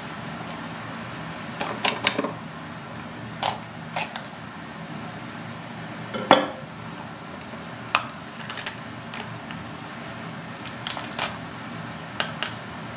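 Snow crab being cut apart with a kitchen knife on a wooden board and its shell pulled off by hand: scattered sharp cracks and clicks of blade and shell, the loudest about six seconds in, over a steady background hum.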